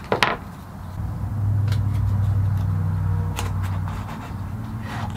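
Blue painter's tape pulled off the roll in a few short rips and wrapped around a glued-up wooden box as a clamp, over a steady low hum that is the loudest sound.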